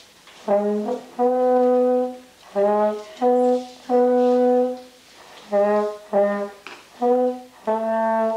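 A single brass instrument plays a slow line of about nine separate notes in a middle-low register, some short and some held for about a second, each split off by a brief silence.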